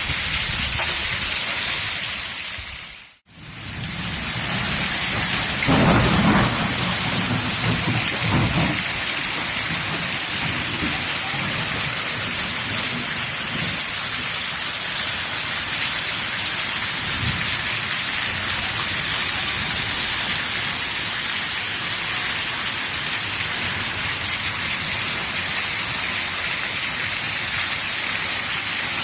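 Heavy, steady rain hissing. A low rumble of thunder comes about six seconds in and lasts a few seconds, and a fainter rumble follows later. The sound briefly fades out and back in about three seconds in.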